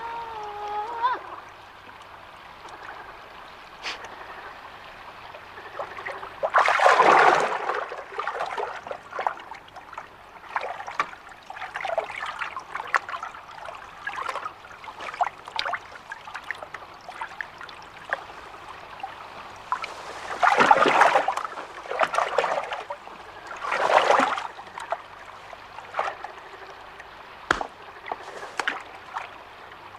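Trickling and splashing water, with three louder splashing surges: one about a quarter of the way in and two about two-thirds of the way through. A short pitched tone fades out at the very start.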